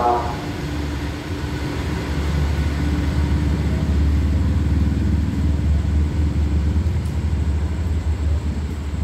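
Passenger train pulling out of the station, a steady low rumble as it moves away.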